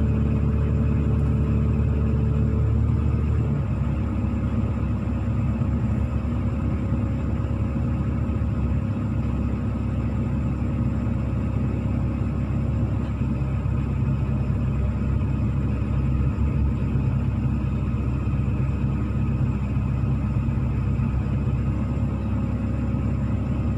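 Hino 500 dump truck's diesel engine running steadily at a low, rumbling pitch; a higher steady tone in it stops about three and a half seconds in.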